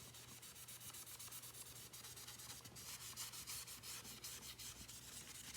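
Faint, quick back-and-forth scrubbing, several strokes a second, as surface grime is rubbed off the plastic body of a Miele stick vacuum by hand.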